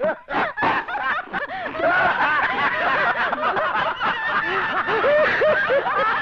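Several men laughing hard together, their voices overlapping in a continuous burst of laughter.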